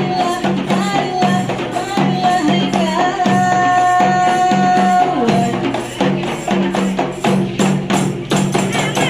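Rebana frame drums beating a fast, steady rhythm under a wavering melody line. About three seconds in, the melody holds one long high note for around two seconds before the drumming carries on.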